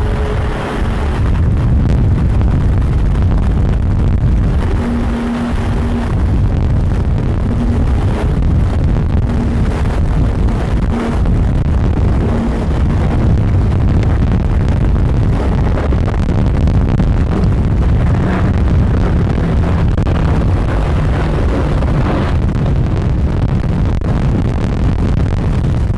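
Boeing P-8 Poseidon's twin CFM56 turbofan engines as the jet passes low overhead: a loud, steady, deep rumble of jet noise that holds even throughout.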